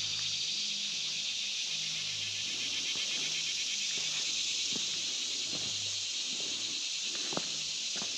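Steady, high-pitched chorus of insects, with a couple of sharp crunches of footsteps near the end.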